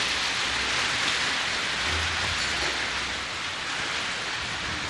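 Steady rain: an even hiss with no separate drops or knocks standing out.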